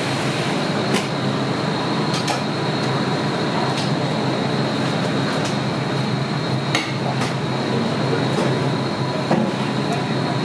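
Restaurant kitchen noise: a steady hum of equipment with a thin high whine over it, broken by several sharp clicks and clinks of utensils and pans.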